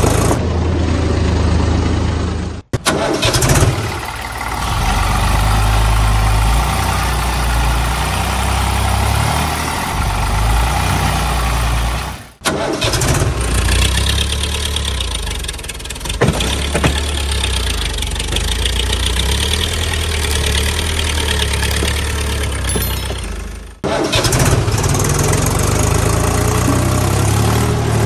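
Tractor engine running steadily. It breaks off abruptly three times and starts again each time.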